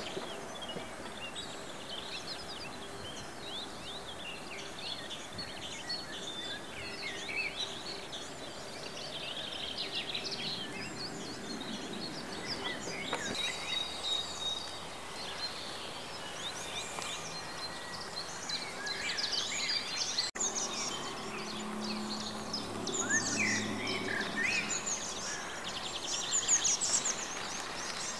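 Small birds chirping and singing on and off over a steady outdoor background hiss and faint hum, the chirps growing busier in the second half. A single sharp click partway through.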